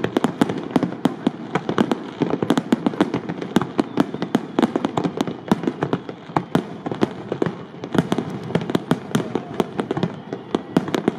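Aerial firework shells bursting in a dense, unbroken barrage of the display's finale, several sharp bangs a second overlapping one another.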